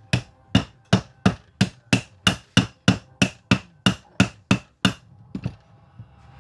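Hand hammer striking a part repeatedly during reassembly of a Hilti TE 76 rotary hammer: even, sharp blows about three a second, each with a short ring, stopping about five seconds in.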